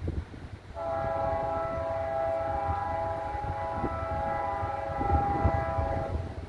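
Diesel locomotive's multi-chime air horn sounding one long, steady blast of about five seconds, starting about a second in, over gusting wind on the microphone.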